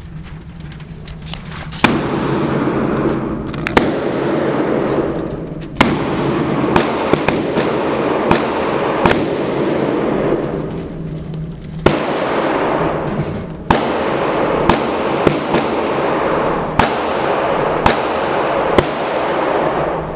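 Handgun shots at a shooting range, about fifteen at irregular spacing, each followed by a loud echoing wash that fills the gaps between shots.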